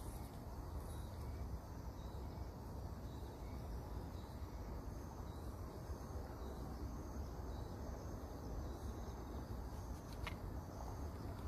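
Steady outdoor garden ambience: a low rumble with faint, steady high-pitched insect trilling, and a single short click near the end.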